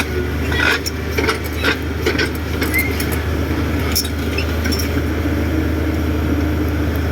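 Diesel engine of heavy earthmoving machinery running steadily, with a scatter of sharp metallic clanks and clinks in the first couple of seconds and again around four to five seconds in.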